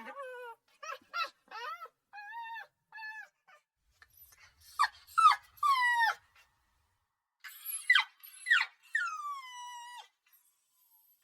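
Puppy crying: a series of short, high-pitched whimpers and whines, then louder yelping cries around the middle, and one long whine sliding down in pitch near the end.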